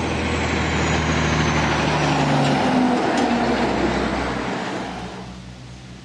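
A road vehicle driving past, its engine and tyre noise swelling to a peak about three seconds in and fading over the next two seconds.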